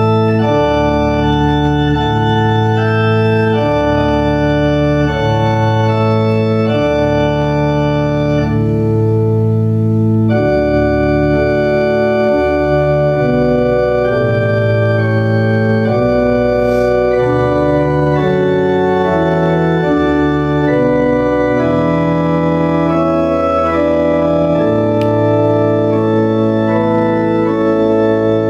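Organ playing slow music in long, held chords.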